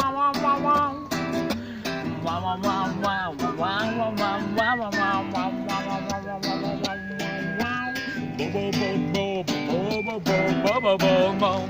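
Acoustic guitar strummed steadily while a man whistles the melody over it, with one long held whistled note past the middle.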